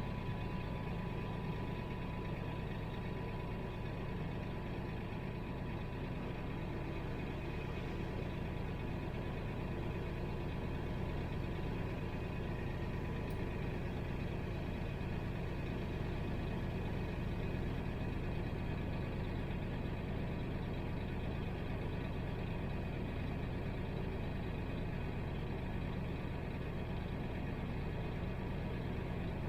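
Heavy vehicle engine running steadily, a low drone with a faint thin whine that fades out about seven seconds in.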